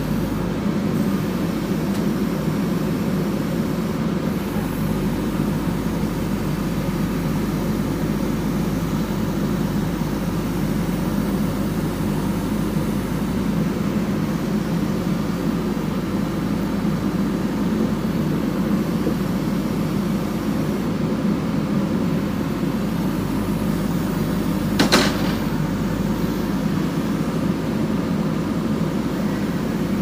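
JCB backhoe loader's diesel engine running steadily while the backhoe arm works its hydraulics, lifting concrete pipes off a truck. One sharp knock comes late on.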